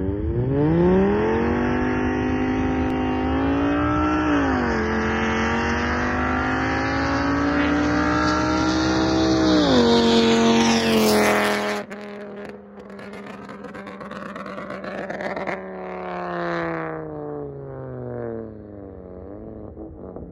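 Volkswagen Jetta 2.5's inline five-cylinder engine through a catless straight-pipe exhaust, accelerating hard with the note climbing, a gear change about four seconds in, then lifting off near ten seconds. A loud rushing burst follows about a second later, then the engine note falls and fades.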